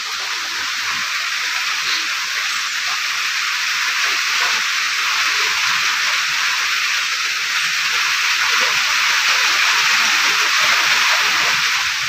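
Light rain falling steadily on trees and leaves, an even hiss that slowly grows a little louder.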